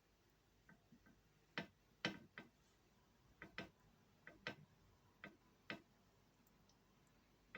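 A series of short, sharp clicks at irregular intervals, about a dozen in all, several close together in pairs.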